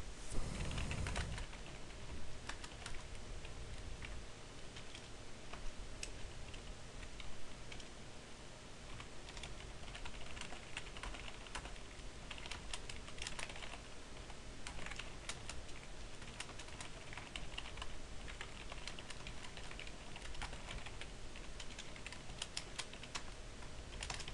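Typing on a computer keyboard: irregular runs of key clicks with short pauses between words and lines, entering a few lines of code. A low thud sounds at the start, under a faint steady hum.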